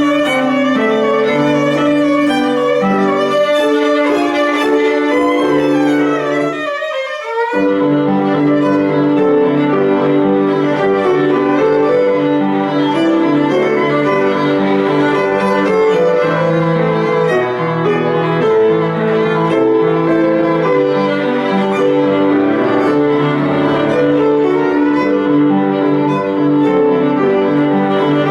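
Solo violin playing a classical piece with piano accompaniment. About seven seconds in, the accompaniment breaks off briefly while the violin slides upward, then both resume.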